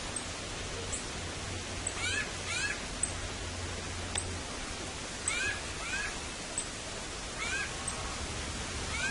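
Roosting great fruit-eating bats (Artibeus lituratus) giving short squeaky calls that bend in pitch, mostly in pairs a few seconds apart, over a steady hiss.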